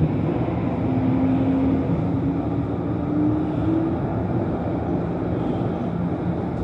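A tram running along its tracks, heard from inside the car: a steady rumble of wheels on rails, with a faint motor whine that climbs slowly in pitch.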